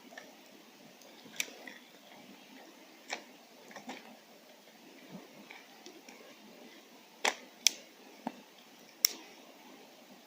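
Scattered sharp clicks and pops at irregular intervals over a faint steady background, the loudest of them bunched about seven to nine seconds in.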